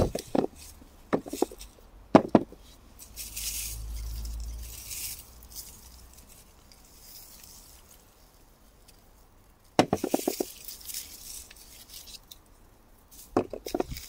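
Hands rummaging through loose soil and potato foliage while potatoes are lifted by hand: rustling of leaves and earth, with a few light, sharp knocks near the start, about ten seconds in, and near the end.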